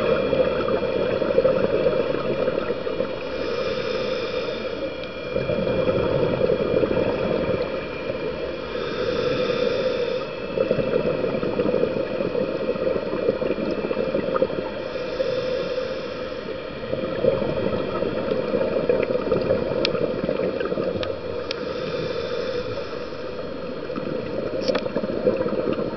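Scuba diver breathing through a regulator, recorded underwater: a steady wash of underwater noise, with a burst of exhaled bubbles about every six seconds. A few sharp clicks come in the second half.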